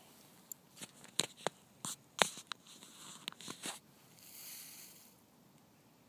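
Handling noise from the camera as it is moved: a string of irregular sharp clicks and cracks, the loudest about two seconds in, followed by a soft hiss that fades out about five seconds in.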